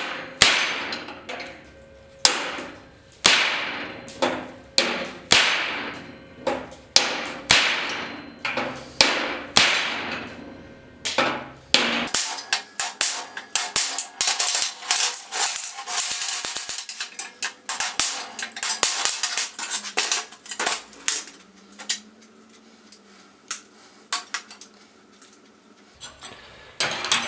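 Hammer striking steel, about one blow a second, each ringing briefly. About halfway through the blows give way to quicker, lighter taps and clatter, which thin out near the end.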